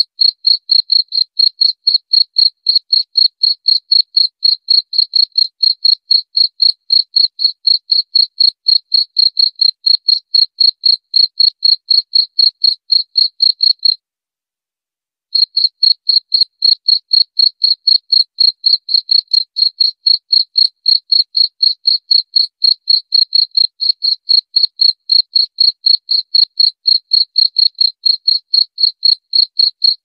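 Cricket chirping in a quick, even train of high-pitched chirps, all at the same pitch. It stops for about a second a little before halfway through, then goes on.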